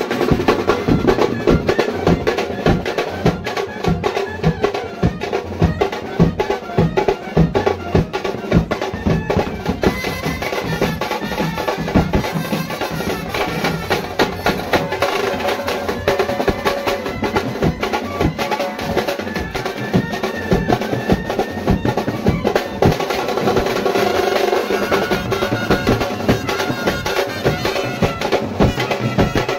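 Mumbai banjo band playing: big bass drums and side drums beat a fast, dense rhythm under a melody on clarinet and brass. The horn and clarinet line comes through more clearly from about ten seconds in.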